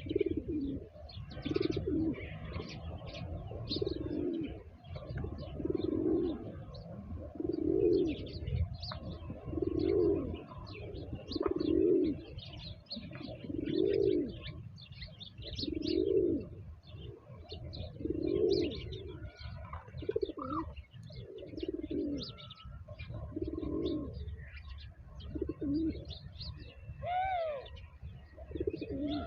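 A dove cooing, one low call about every two seconds, with small birds chirping over it and a single rising-and-falling call near the end.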